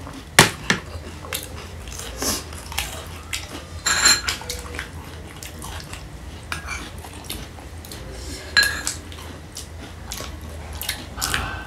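Metal spoons and forks clinking and scraping against ceramic plates and bowls while eating, in scattered short sharp clicks. The loudest come about half a second in, around four seconds and around eight and a half seconds.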